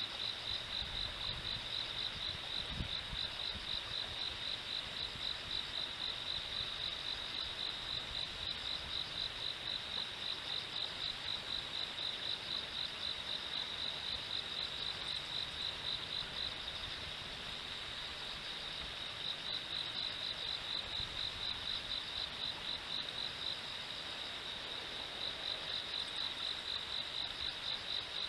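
Insect, cricket-like, chirping on one high pitch in a fast, even pulsing rhythm, pausing for a couple of seconds about two-thirds through and again near the end, over a soft steady hiss of flowing river water.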